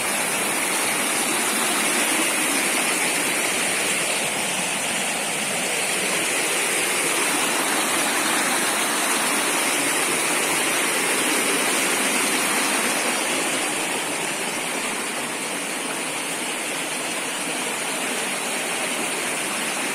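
Steady rush of a rocky creek tumbling over small rapids and cascades below a waterfall.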